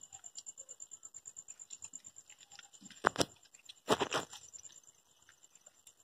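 Cats licking and chewing food from a hand, with an insect chirping steadily and fast. Two loud sudden scuffs about three and four seconds in.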